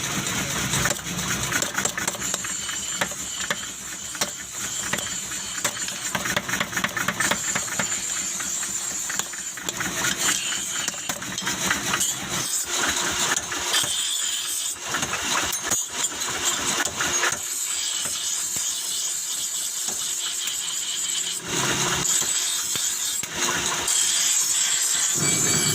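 Forging machinery running in an axe-forging workshop: continuous mechanical clatter with rapid pounding and rattling and a steady hiss, changing in texture partway through.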